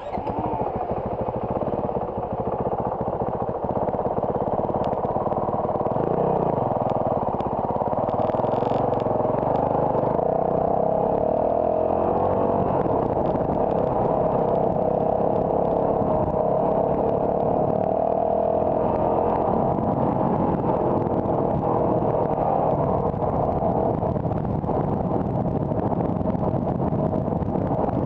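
A car driving: steady engine and road noise. It gets suddenly much louder at the very start, then holds even, with the engine tone wavering slightly.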